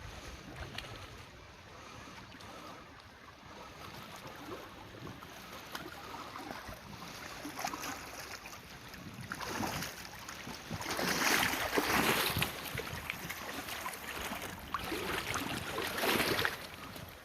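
Flowing river water with wind on the microphone, a steady rush that grows louder about halfway through, with surges near the end.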